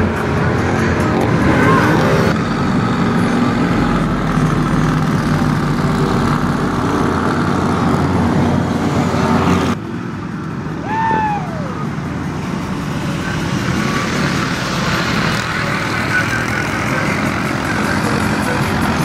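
Engines of a lifted mud truck and then an ATV running, with the sound changing abruptly about ten seconds in. About a second after the change comes a short, high whistle-like call that rises and then falls.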